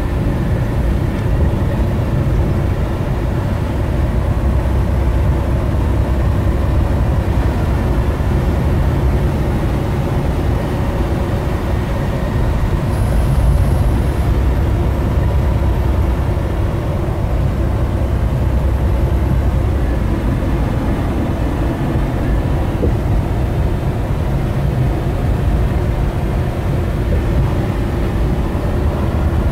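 Steady road noise heard from inside a moving vehicle's cabin: low rumble of tyres on the paved road and the engine running at cruising speed, swelling briefly with a hiss about halfway through.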